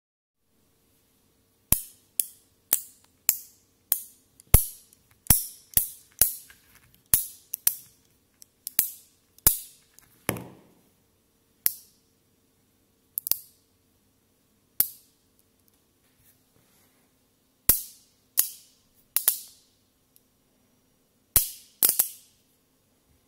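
10 mm neodymium magnet balls snapping together as triangular pieces are pressed onto a ball of magnets: about two dozen sharp metallic clicks with a bright ring. They come about twice a second at first, then further apart, and one duller, lower click falls near the middle.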